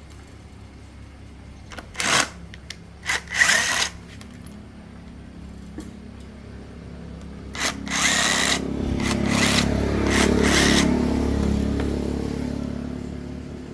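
Power tool run in two short bursts, then switched on for a longer spell whose motor hum slowly winds down over several seconds.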